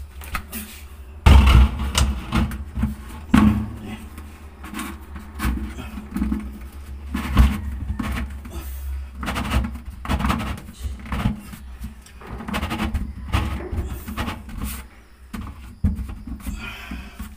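Orange plastic drain pipe and fitting being handled and pushed together by hand under a sink: irregular knocks, taps and scrapes of plastic on plastic, the loudest about a second in.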